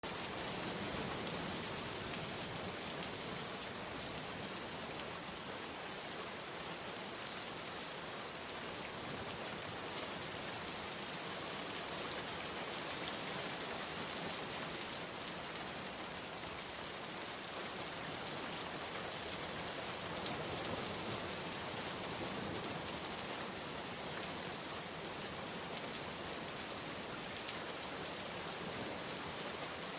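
Steady rainfall, an even hiss of rain on a surface with faint scattered drop ticks, unchanging throughout.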